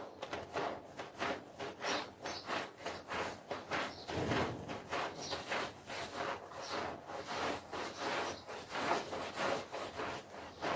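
Carpet being scrubbed with a stiff brush: short, even strokes, about three a second, one fuller stroke about four seconds in.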